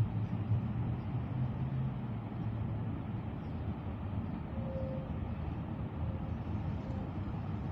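A low engine hum over a steady outdoor noise, the hum fading after about two and a half seconds.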